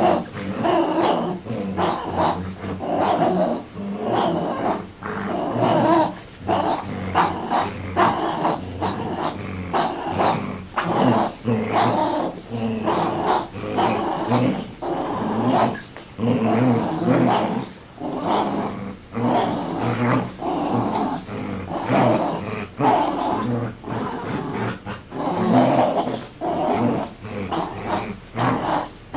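A dog growling over and over in short bursts, on an old cassette home recording.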